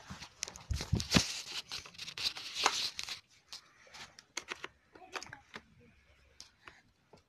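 Handling noise on a phone's microphone: fingers rubbing, scraping and tapping against it as the phone is grabbed and moved about. The noise is loudest and densest for the first three seconds, then thins to scattered clicks and taps.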